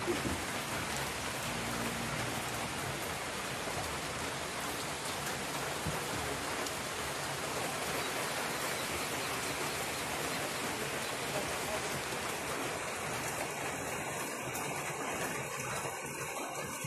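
Heavy typhoon rain falling steadily, an even hiss of rain on the ground and foliage.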